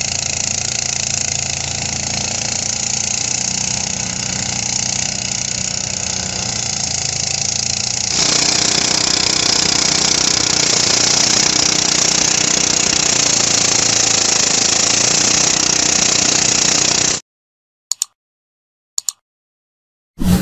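Motorized rice thresher running steadily: its small engine's hum under the dense rushing noise of the threshing drum as rice stalks are fed in. The sound shifts at a cut about eight seconds in and stops abruptly a few seconds before the end, followed by two brief blips.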